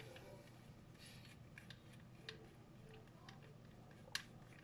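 Near silence with a few faint, short clicks of small plastic Xbox One controller parts being handled, the sharpest about four seconds in.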